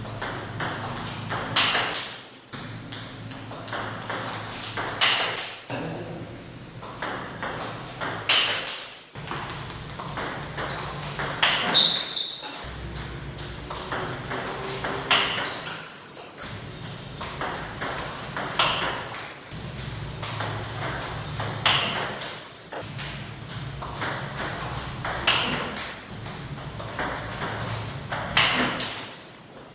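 Table tennis ball clicking sharply off the bat and the table again and again as backhand loops are played, the loudest cracks coming about every three and a half seconds.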